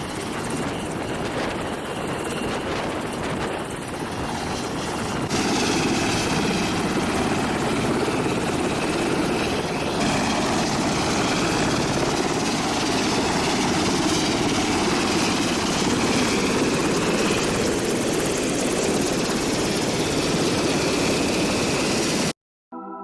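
MH-60S Seahawk helicopter's turbine and rotor noise, a loud steady rush that shifts abruptly about five and ten seconds in and cuts off just before the end.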